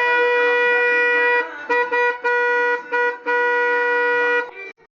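Motorcycle electric horn sounding a steady tone: one long blast of about a second and a half, three short toots, then a blast of about a second. It is working again after water got into it during a wash, with its volume deliberately set low.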